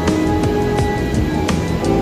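Background music with a beat and held notes.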